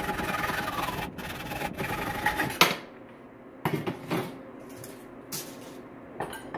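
Hacksaw strokes cutting through the oil pump pickup tube clamped in a bench vise, a steady back-and-forth rasp for about two and a half seconds that ends in a sharp clack. After that, a few separate knocks as tools are set down on the workbench.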